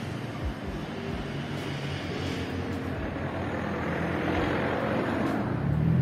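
Street traffic: the noise of a car going past, growing louder toward the end.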